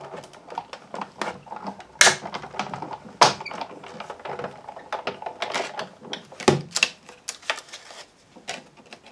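Sizzix Big Shot die-cutting machine being hand-cranked, the plate sandwich with its magnetic platform passing through the rollers, then the hard plastic plates being pulled out and handled. The result is an uneven run of clicks and clacks, with two loud clacks about two and three seconds in and a heavier knock past the middle.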